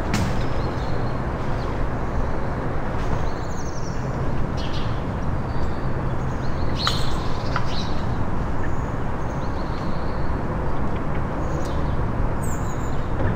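Small birds chirping in short, scattered calls over a steady low rumble.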